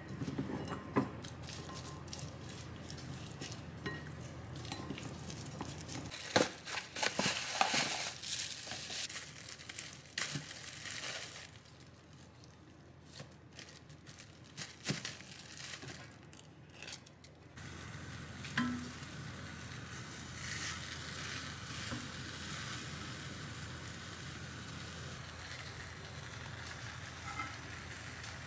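Two spatulas stirring and scraping marinated chicken in a glass bowl, with clinks against the glass. Then a plastic bag crinkles as flatbreads are taken out. After a thump past the middle, a steady faint sizzle from flatbreads heating in a pan.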